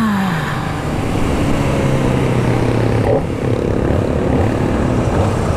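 Kawasaki Ninja ZX-25R's 250 cc inline-four engine under way, its revs falling just at the start as the bike slows, then running steadily at low revs with a change in engine note about three seconds in. Wind rush on the rider's microphone runs under it.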